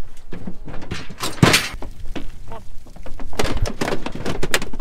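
Sheep hooves clattering and knocking on a livestock trailer's ramp as a group of ewe lambs runs up into the trailer, with one louder bang about a second and a half in and a thicker patter of hoof knocks in the second half.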